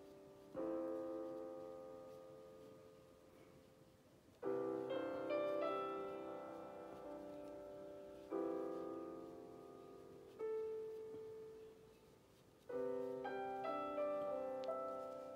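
Background piano music: slow chords struck every few seconds, each left to ring and fade away.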